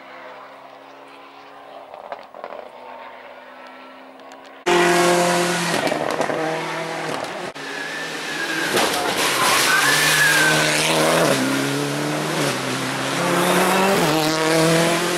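Rally car engine heard faintly at first; then, after a sudden jump in level about four and a half seconds in, a nearer rally car's engine runs loud, its pitch climbing in steps through the gears and dropping again as it brakes, with a brief tyre squeal.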